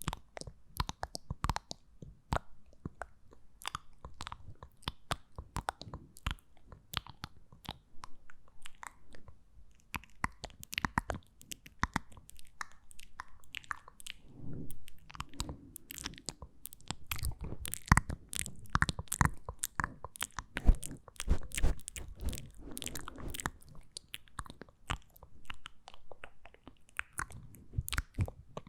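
ASMR mouth sounds close to the microphone: a dense run of wet clicks and smacks, loudest in the middle stretch.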